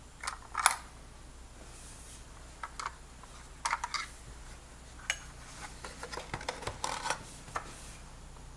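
Small hard plastic clicks and knocks, scattered irregularly with some rustling, as batteries are handled in a smart lock's battery compartment.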